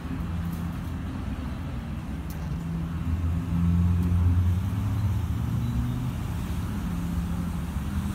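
A low, steady motor hum that grows louder about three seconds in and eases off after about five seconds.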